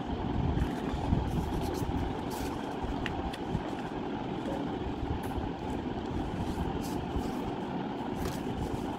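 Sheet of paper being pressed flat and creased by hand, giving a few faint soft rustles and ticks over a steady low rumble of background noise.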